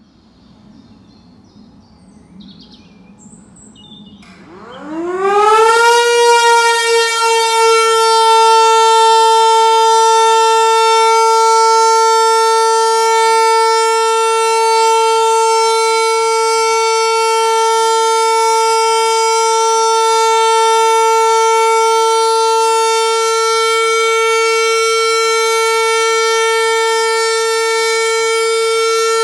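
Hörmann HLS 273 civil-defence siren starting up: its tone rises in pitch about five seconds in, then holds one steady, unwavering note. This is the continuous one-minute all-clear (Entwarnung) signal of a German siren test.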